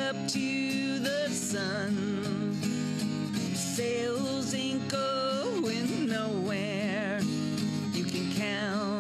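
A woman singing with an acoustic guitar, holding long notes with a wavering vibrato over steadily played chords.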